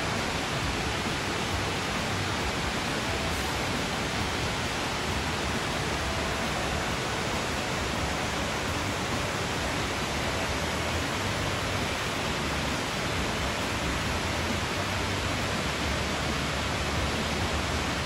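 Waterfall rushing: a steady, even roar of falling water that does not change.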